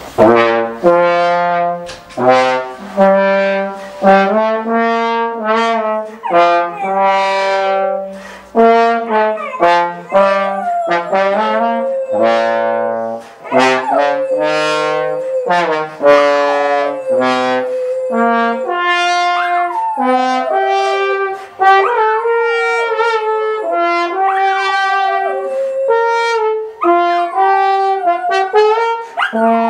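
A brass instrument playing a run of held notes, each starting sharply, with sliding bends in pitch in the second half.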